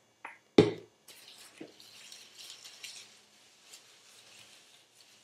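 A sharp knock about half a second in, then soft, wet rustling and squishing as rubber-gloved hands work hair product through damp hair.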